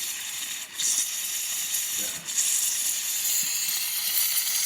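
Espresso machine steam wand hissing steadily, dipping briefly twice. It is running in a post-repair test that shows steam pressure working.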